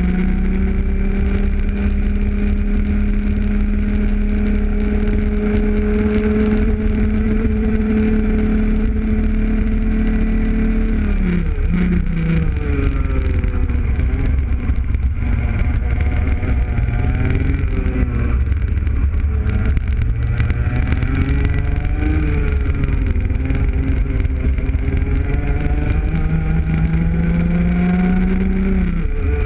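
Rotax Junior Max kart's 125cc two-stroke engine at full throttle down a straight, its pitch creeping up, then dropping sharply as the throttle is lifted about eleven seconds in. Through the following corners the pitch rises and falls several times, then climbs high again before a drop at the very end.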